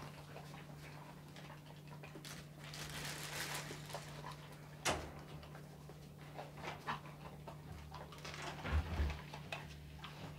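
Weimaraner puppy eating greedily, with snuffling and small clicks of food and bowl, a sharp click about five seconds in and a couple of low thumps near the end, over a steady low hum.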